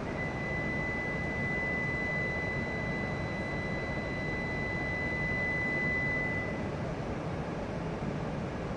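A steady, high electronic warning tone sounds for about six and a half seconds, then stops, over the even background noise of a station platform where an E6 series shinkansen stands waiting to depart.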